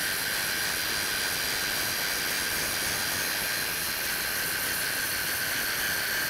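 Angle grinder with a thin disc running steadily with a high whine, grinding into the root of a Monel 400 pipe joint to open up a root gap too tight for the filler wire.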